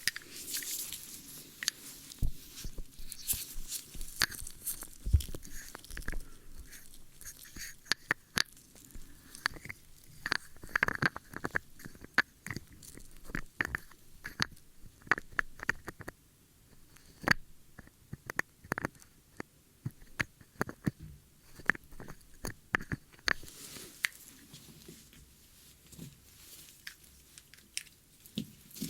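Close-miked ASMR ear-cleaning sounds: irregular crackling, scratching and sharp clicks, denser in clusters, over a faint high hiss.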